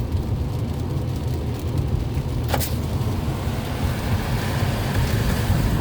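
Car running, heard from inside the cabin: a steady low rumble of engine and road noise, with a single sharp click about two and a half seconds in.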